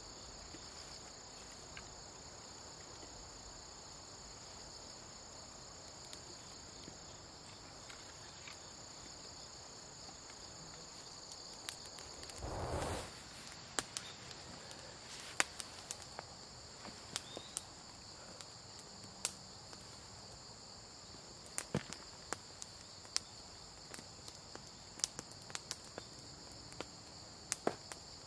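A steady high chorus of insects trilling in the background. About halfway through comes a brief rustle, followed by scattered sharp clicks and snaps.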